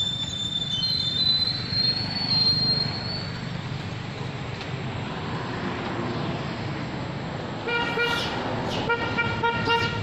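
A horn tooting in short repeated blasts during the last two seconds, over a steady low rumble. A thin, high, steady whistling tone sounds in the first few seconds.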